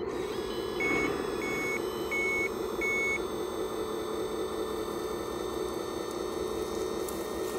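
Reversing beeper of a radio-controlled Volvo A40G 6×6 articulated dump truck model sounding four evenly spaced high beeps, then stopping a little past the middle. A steady running hum from the model continues underneath.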